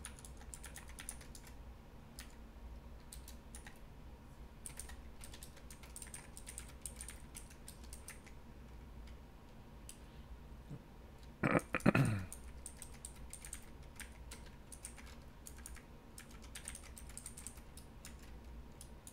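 Typing on a computer keyboard: a run of quick, light key clicks as a password is entered. About two-thirds of the way through, a short vocal sound falling in pitch is the loudest thing heard.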